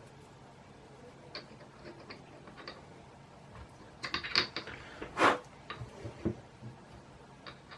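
Small metal parts and tools being handled during bandsaw repair: scattered light clicks, a quick run of clinks about four seconds in, then a brief louder scrape just after five seconds followed by a few dull knocks.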